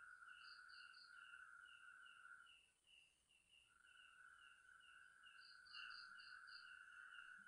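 Faint night chorus of calling animals. One keeps up a steady buzzing trill that drops out for about a second midway, another gives a higher call pulsing a little over twice a second, and twice there is a quick run of four or five higher chirps.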